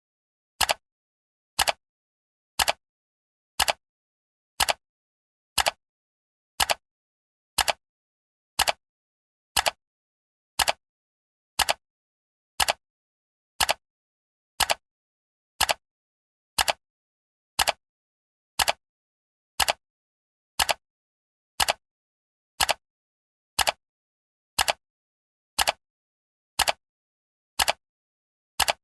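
Clock ticking sound effect of a countdown timer: one short, sharp tick every second, evenly spaced, with silence between the ticks.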